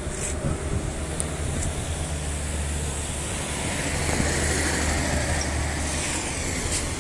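A car driving past on the road, its engine and tyre noise swelling about four seconds in, then easing off.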